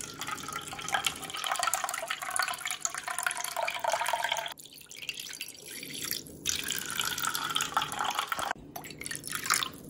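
Brewed coffee poured in a thin stream into a plastic measuring cup, trickling and splashing steadily, with a few brief breaks in the flow.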